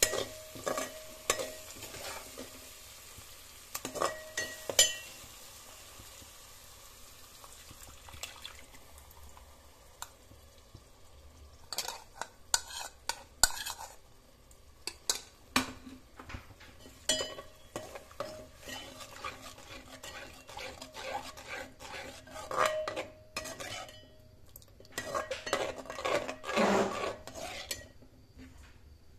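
Steel slotted ladle stirring in an aluminium pot, scraping and clinking against the metal again and again. For the first several seconds the masala sizzles in hot oil, fading after that, while the later stirring through thinner gravy brings dense runs of knocks against the pot.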